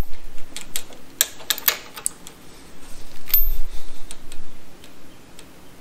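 Hand socket ratchet clicking in short, uneven runs of clicks as the exhaust rocker arm's adjusting nut on a Chevy 307 small block is snugged down during hydraulic-lifter valve adjustment.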